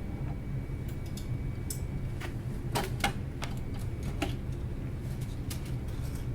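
Scattered light plastic clicks and knocks, about eight of them and irregularly spaced, as a filament spool with plastic adapter rolls is handled and set onto its holder stick. They sit over a steady low hum.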